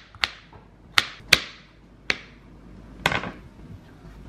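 A kitchen knife chopping baby carrots on a plastic cutting board: about five sharp taps of the blade hitting the board, unevenly spaced, the last one about three seconds in.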